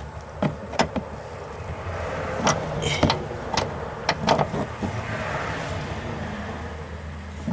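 Metal hand tools clinking and knocking in a series of irregular sharp taps, some with a brief rattle, over a steady low hum.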